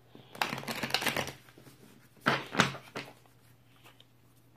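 Oracle cards being handled: a rustle of card stock as a card is drawn from the deck, then two short sharp card taps about a third of a second apart.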